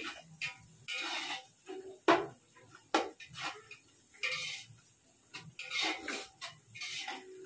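Spoon scraping and clinking against a cooking pot in irregular strokes as onions are stirred and fried for biryani, with one sharp clink about two seconds in.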